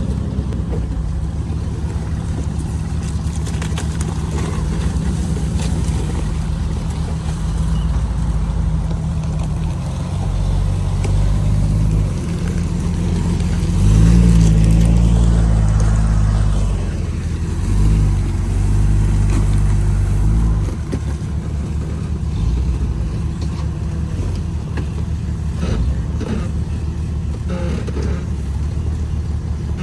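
Off-road rock-crawling vehicle's engine running at low revs, revving up harder about halfway through as it climbs, surging again briefly, then settling back to a steady low run.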